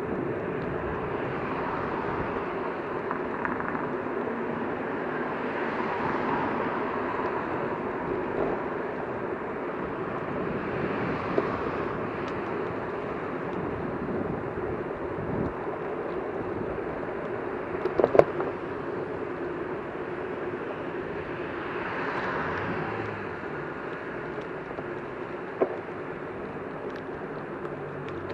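Steady outdoor traffic noise, swelling now and then as vehicles pass, with a few sharp clicks about two-thirds of the way through.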